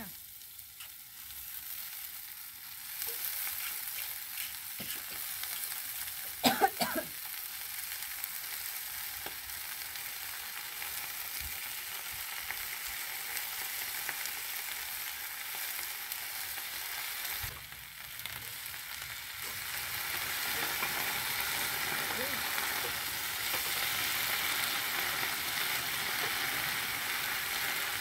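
Cabbage leaves and water spinach sizzling in a frying pan with a chili and shrimp-paste base, stir-fried with a metal spatula. There are a few sharp clatters about six and a half seconds in, and the sizzle grows louder over the last third.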